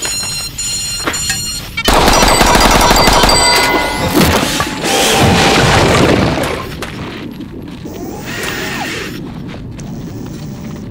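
Background music, then about two seconds in a loud burst of rapid gunfire with booms that lasts about four seconds before dying away under quieter music.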